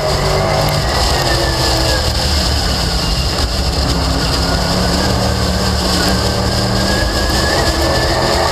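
Late Model stock car's V8 engine running hard at race speed, heard from a camera mounted on the car, with wind and road noise. The engine note eases off slightly through the corner and climbs again near the end as the car accelerates out.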